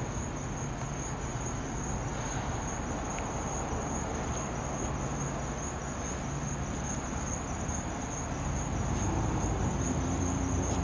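Steady outdoor background noise: a continuous high-pitched whine over a low rumble, growing slightly louder near the end.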